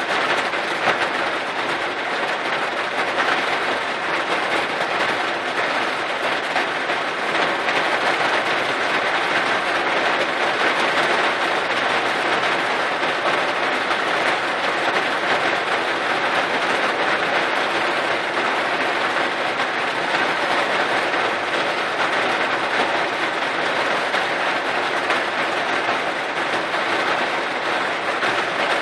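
Downpour of heavy rain beating on a car's roof and glass, heard from inside the cabin as a steady, even hiss.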